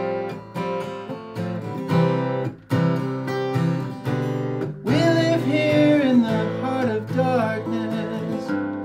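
Song's instrumental break: steel-string acoustic guitar strumming chords, with a lead melody of bending, sliding notes over it from about five seconds in.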